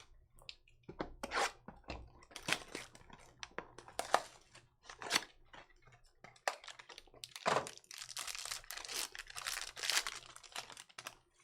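A sealed trading-card pack being torn open, with repeated short rips and the wrapper crinkling and crackling, busiest in the second half.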